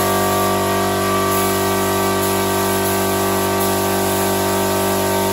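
Compressed-air paint spray gun hissing steadily as clear coat is sprayed onto a car fender, with a steady hum underneath.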